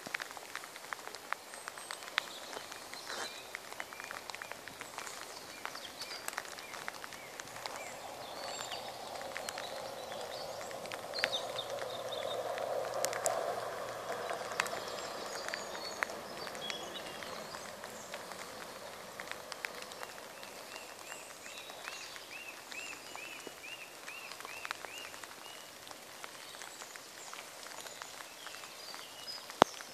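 Rain falling outdoors, with drops ticking sharply close to the microphone throughout, and small birds chirping; one bird repeats a quick run of notes a little after halfway. A low rumble swells up and fades away in the middle.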